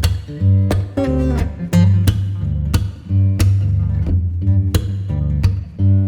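Guitar music: a plucked and strummed guitar over a steady bass line, with a sharp attack on each note or chord.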